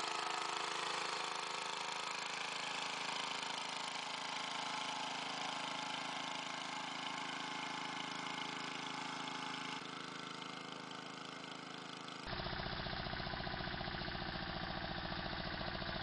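Engine of a two-wheeled walk-behind tractor running steadily as it pulls a fan-type potato digger through the soil. About twelve seconds in, the sound switches abruptly to another walk-behind tractor's engine with a deeper, more even beat.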